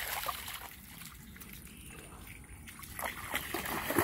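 A dog splashing as it runs through a shallow creek. The splashes come at the start, ease off into a quieter stretch in the middle, and pick up again near the end.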